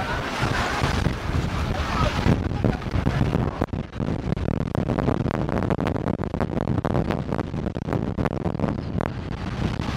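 Wind buffeting the microphone: a constant low rumble broken by many short crackling pops.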